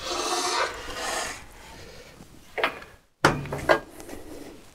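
Sliding carriage of a Felder KF 500 combination shaper/saw pushed along its rail, a rolling rush for about the first second and a half, followed by a click. After that come a sharp knock and some lighter knocks from a board being handled on the sliding table.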